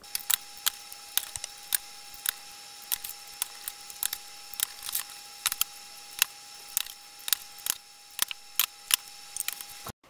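A series of sharp, irregular clicks, about two or three a second, over a faint steady high whine; it starts and cuts off abruptly.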